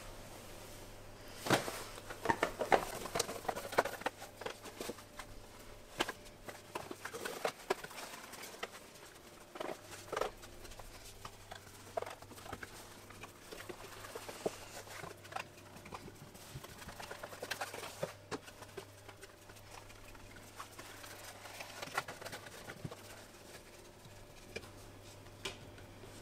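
Thin pastry dough being stretched by hand on a wooden table: irregular soft pats, taps and rustles as the sheet is lifted, dropped and its edges pulled out.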